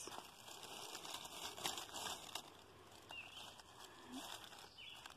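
Faint rustling and crinkling of dry leaf litter with scattered light taps as a stick prods and turns over a bone fragment on the forest floor.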